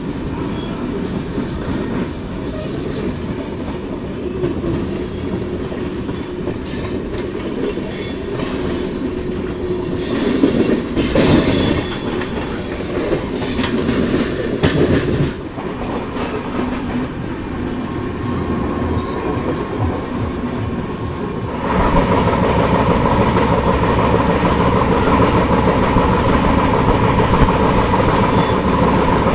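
Passenger train coaches running on the track, heard from the open coach door: a steady rumble and rattle of wheels on rail with wind rush, with scattered clicks in the middle, growing suddenly louder and steadier about three quarters of the way in.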